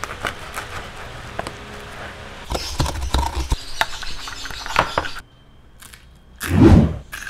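Crackling and crunching of a knife cutting through crispy pork belly crackling on a wooden board, a dense run of sharp clicks. It gives way to light clinks of a metal spoon in a small glass bowl. One loud, dull thud comes near the end.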